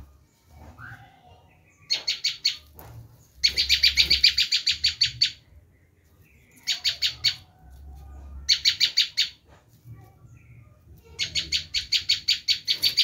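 Prenjak lumut giving its shrieking alarm-type chatter: five bouts of fast, evenly repeated high sharp notes, each bout lasting from under a second to about two seconds, with short pauses between.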